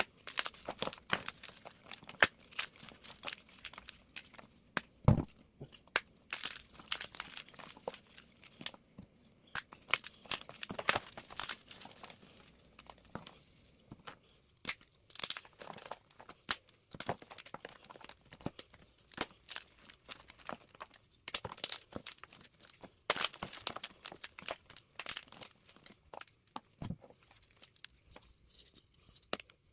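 Blocks of gym chalk being crushed and crumbled, a dense, irregular run of crunches and crackles with a couple of heavier thuds, sped up.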